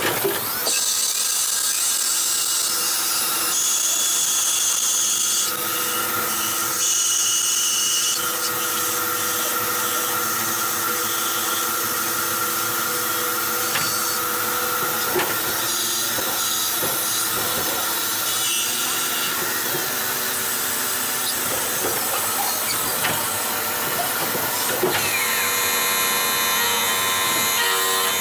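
CNC lathe cutting aluminium bar stock: a steady mechanical whine with a hiss of cutting, its pitch and tone shifting every few seconds as the cut changes, and a different, busier sound near the end as a live tool drills the part.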